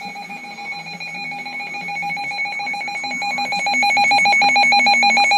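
Emergency Alert System attention signal: a harsh, steady two-tone alarm with a fast flutter, growing louder about three and a half seconds in.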